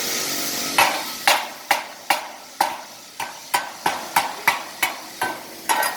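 Stick-welding arc on a 7018 rod hissing and crackling, cutting off under a second in. Then a chipping hammer knocks the slag off the fresh weld with about fourteen sharp, separate strikes, two or three a second.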